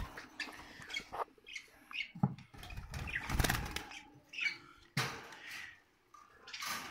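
Caged budgerigars fluttering their wings against a wire cage in several short bursts.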